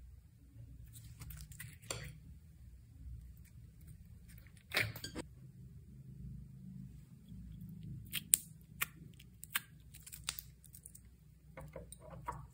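Containers, utensils and packaging being handled while ingredients are mixed into slime: scattered sharp clicks and taps, a brief crinkling rustle about five seconds in, and a quick run of clicks in the second half.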